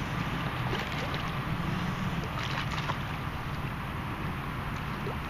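Steady wind noise on the microphone with faint water sounds, and a few light ticks about halfway through.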